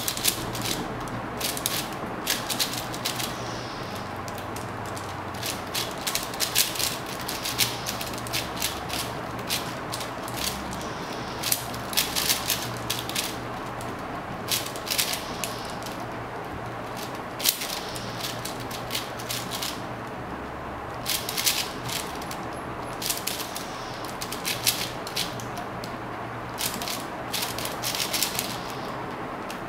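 A 4x4 speed cube being turned by hand: fast runs of plastic clicking and clacking as its layers turn, broken every few seconds by short pauses.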